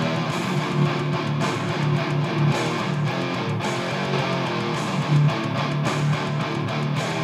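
Electric guitar being played, a continuous run of picked notes and chords.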